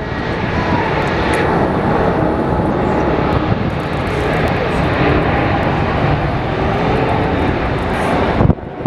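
Jet airliner's engines running loud as the aircraft passes close, a dense rush with faint whine tones sliding in pitch. The sound cuts off abruptly near the end.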